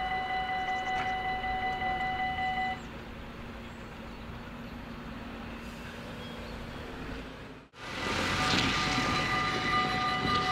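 Electronic level-crossing bells ringing as the barriers rise, stopping about three seconds in. After a sudden break in the sound near the end, the bells ring again, louder, as the red lights flash for the next closing.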